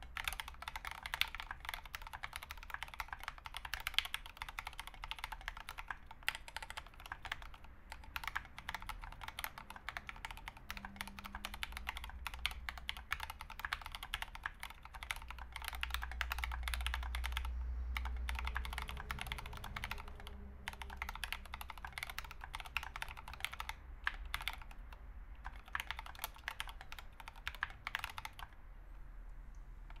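Fast continuous typing on an Idobao ID80 mechanical keyboard fitted with Krytox 205g0-lubed Turquoise Tealio 65g linear switches and SA-profile ABS keycaps: a dense clatter of keystrokes with a few short pauses. The typing stops shortly before the end.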